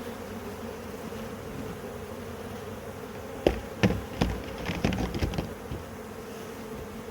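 Swarm of honeybees buzzing in a steady hum around an opened hive, agitated by the honey harvest. A few sharp knocks and clicks come in the middle.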